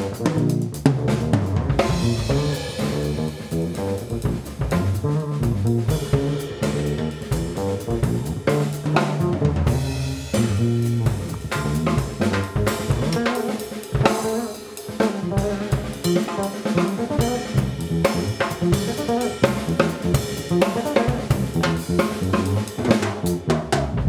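Pearl drum kit played continuously in a busy pattern: bass drum, snare with rimshots, hi-hat and cymbals in quick succession.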